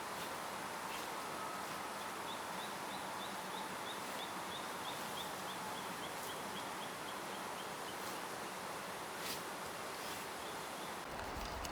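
Riverside outdoor ambience: a steady rushing hiss of flowing water, with a bird calling a long run of short, quick high notes that drift slightly lower in pitch. Near the end a low rumble of wind on the microphone comes in.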